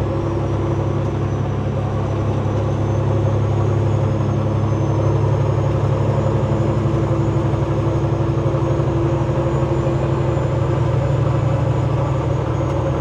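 Semi truck's diesel engine and road noise while cruising on the highway: a steady, low drone.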